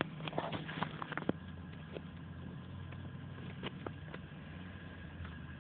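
A car engine idling with a steady low hum, heard from inside the car. A cluster of short, soft clicks comes in the first second or so, and a few more follow later.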